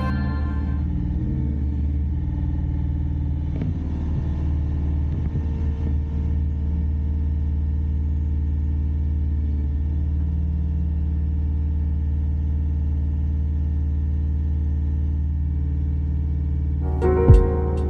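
Bobcat CT4045 compact tractor's diesel engine running at a steady speed, with a few faint knocks from the work.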